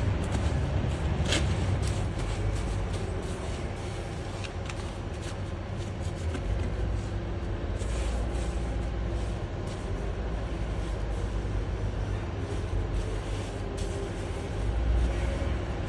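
Steady low rumble of parking-garage background noise, with scattered light clicks and knocks, a sharper click about a second in, and the rumble swelling briefly near the end.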